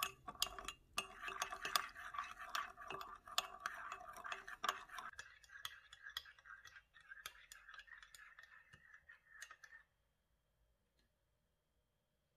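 A metal teaspoon stirring instant coffee mix in a ceramic cup, with quick faint clinks and scrapes against the cup wall. The clinking thins out about halfway through and stops about ten seconds in.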